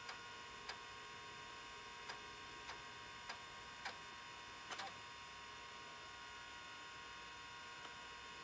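Miniscribe 3425 MFM hard drive spinning with a steady hum and whine, with a series of faint short clicks, roughly one every half second, during the first five seconds as disk heads seek.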